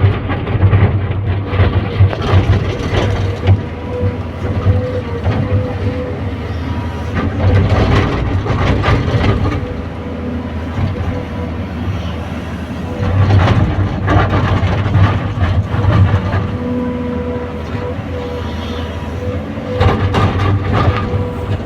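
Excavator at work: its diesel engine runs steadily under a continuous hydraulic whine, with repeated clanks and knocks of metal throughout.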